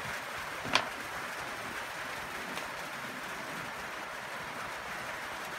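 Steady background hiss with one sharp click a little under a second in, from hands handling the wires and multimeter test leads.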